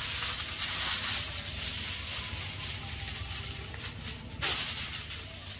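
Steady hissing, with a sharp click about four and a half seconds in.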